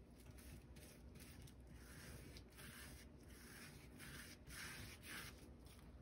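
Faint, repeated swishes of a gloved hand rubbing sealer over the round resin drills of a diamond painting, about one or two strokes a second.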